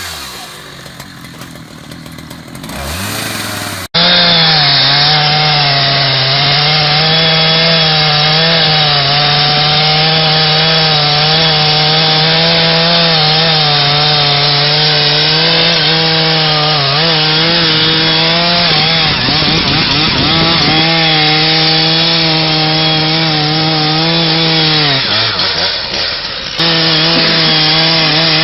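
Chainsaw engine running at high, steady revs while cutting through wood. Its pitch sags twice as it bogs down under load, then picks back up.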